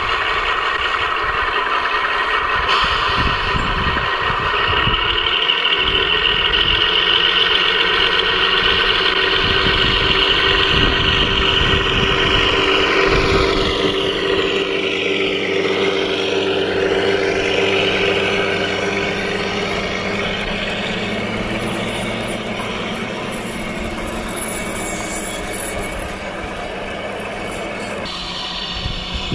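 7mm scale model Class 52 Western diesel-hydraulic locomotive running past with a steady diesel engine sound from its onboard sound system, over the rumble of its wheels on the track. The sound grows louder as the loco nears and passes close, then eases off slightly.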